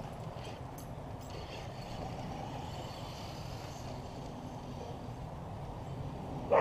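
Steady outdoor background noise with the faint, wavering whine of an RC car's motor driving across the lawn. A brief sharp sound near the end is the loudest moment.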